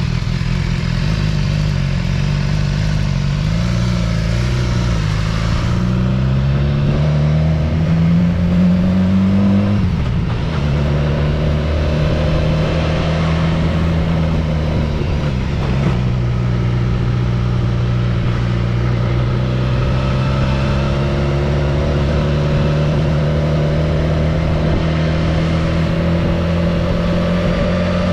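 Road vehicle engine under way, accelerating with its pitch rising for about ten seconds, then dropping sharply. It dips again a few seconds later, then runs steadily with the pitch slowly climbing.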